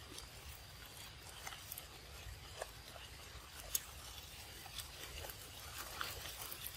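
A young macaque drinking from a paper juice carton: faint, scattered small clicks and sucking sounds from its mouth and the carton, the sharpest a little past the middle, over a low steady background rumble.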